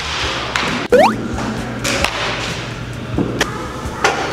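Baseball bat hitting pitched balls in a batting cage: several sharp knocks. About a second in there is a quick rising whistle, and background music plays underneath.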